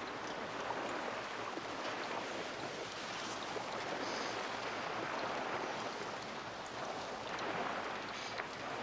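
Steady rush of sea water and wind, with a few faint ticks.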